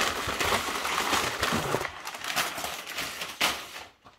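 Cardboard shipping box being opened by hand: a continuous rustling and scraping of the flaps and packing inside, with a few sharper crackles.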